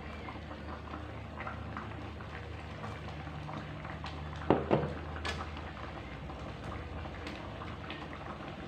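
Coconut-milk fish curry simmering and bubbling in a pan, with two sharp knocks about halfway through.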